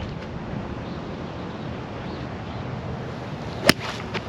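Steady wind noise on the microphone. About three and a half seconds in comes a single sharp crack as a golf club strikes the ball on a tee shot, followed half a second later by a much fainter tick.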